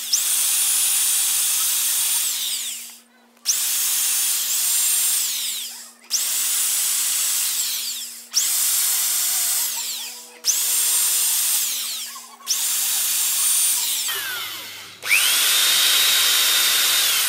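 Corded electric drill boring small holes in wood, its trigger pulled in about seven short runs, each spinning up to a high whine, holding for about two seconds and winding down. The last run, near the end, is slower and lower-pitched.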